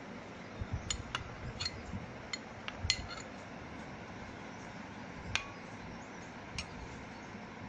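Metal spoon clinking against a bowl as chopped onion is spooned in. There is a quick run of light clinks in the first three seconds, then two more single clinks later.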